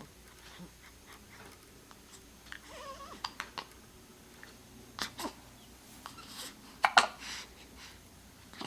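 A pet animal hiccuping: a string of short, sharp hiccup sounds, the loudest about two thirds of the way through, with a brief squeaky sound around three seconds in.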